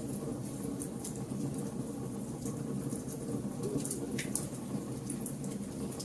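Wood campfire of burning logs crackling: a steady low rumble of flame with scattered sharp pops and snaps, a few louder ones about four seconds in.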